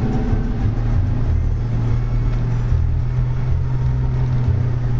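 4x4 vehicle's engine running at a steady speed while driving, a loud, even low drone with an uneven rumble beneath it.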